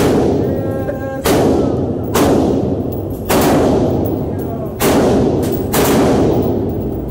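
Gunshots fired one at a time, a string of about six reports roughly a second apart, each echoing with a long tail in an indoor range.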